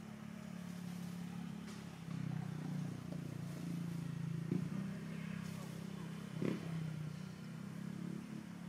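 A motor engine running steadily, growing louder about two seconds in, with two sharp clicks.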